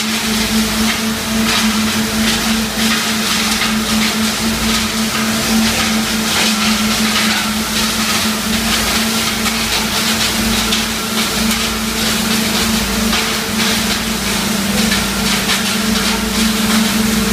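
Wood hammer mill running at full load, crushing small wood blocks into sawdust: a constant loud machine drone with a steady hum, peppered with a dense crackle of wood being smashed.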